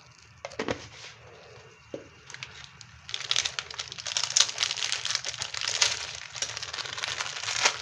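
Plastic packet being crinkled and crumpled in the hands, a dense run of crackling that starts about three seconds in and keeps going, after a light knock near the start.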